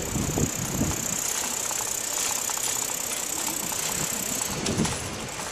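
Steady rush of wind on the microphone with tyre and road noise from a moving bicycle.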